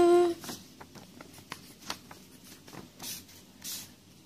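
A hummed note ends just after the start. Then a pen scratches and taps faintly on paper, with two short, louder scratching strokes about three seconds in.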